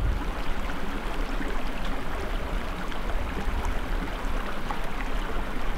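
Small mountain stream running over rocks, a steady rush of water.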